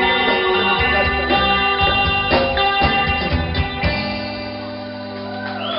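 A band of guitar, keyboard, bass and drums playing the closing bars of a song, with drum hits over the chords, then settling into a long held chord about four seconds in.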